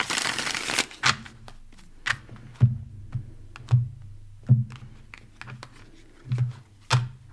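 A deck of tarot cards being shuffled for under a second, then a string of light taps and soft thuds, about ten over several seconds, as cards are drawn from the deck and laid down on a cloth-covered table.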